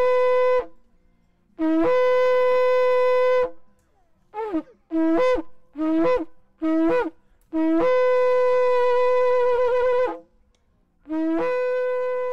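Shofar (ram's horn) being blown in a series of calls: long held blasts that each start on a short lower note and jump up to a steady higher note, with a run of about five short blasts in the middle. One long blast wavers just before it stops.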